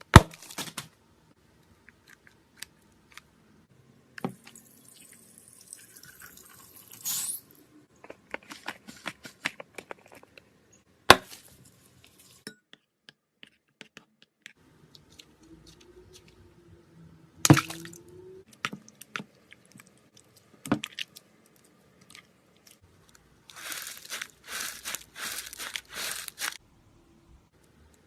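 Slime being squished and worked by hand: scattered sticky clicks and pops, and a dense run of crackling near the end.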